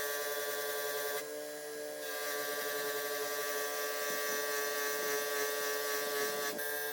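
A small electric power tool motor running with a steady whine, its pitch and level dipping briefly about a second in, as if briefly loaded against the work.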